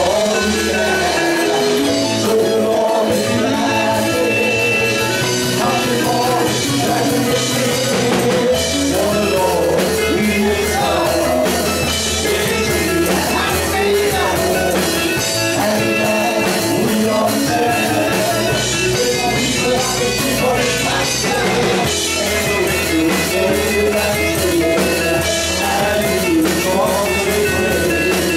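Live gospel band of electric guitar, bass guitar, keyboard and drum kit playing an upbeat song, with men singing into microphones through the PA.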